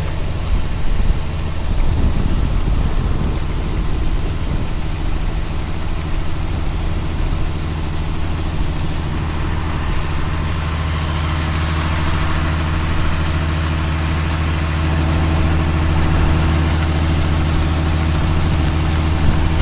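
A large engine running steadily at a constant speed, with an even low hum.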